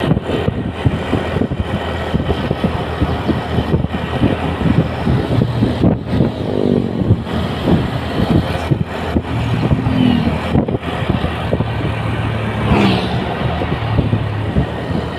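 Motor vehicle engines running on the road, a steady drone with road and wind noise. A brief rising engine whine comes about two-thirds of the way in.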